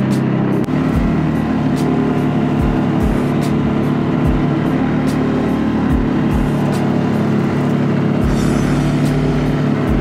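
CFMOTO CFORCE 600 ATV's single-cylinder four-stroke engine running at a steady, even throttle while the quad drives along a rough grassy track, with occasional low thumps.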